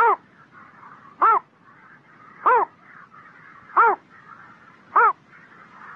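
Small heron calling, a short harsh note that rises and falls in pitch, repeated five times about every 1.3 seconds over a faint steady background noise.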